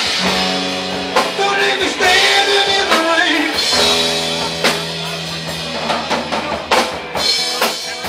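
Live rock band playing an instrumental passage: electric guitars, bass guitar and a drum kit, with sustained lead notes that bend in pitch over a held bass note and steady drum hits.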